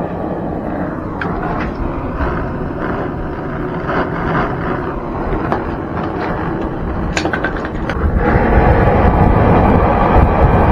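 Handheld butane torch burning with a steady hiss while heating copper pipe fittings. A couple of sharp clicks come about seven seconds in, and the flame noise turns louder from about eight seconds in.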